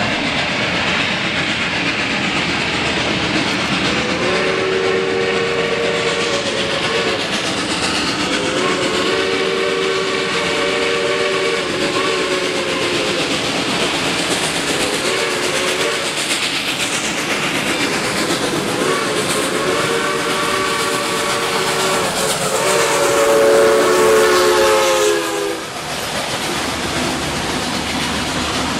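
Steam locomotive No. 425, a 4-6-2 Pacific, approaching and passing while working steadily. Its steam whistle sounds two long blasts, a short one, then a final long blast, the loudest, in the long-long-short-long pattern used for a grade crossing. The sound drops suddenly as the locomotive goes by, and the coaches roll past with clickety-clack on the rails.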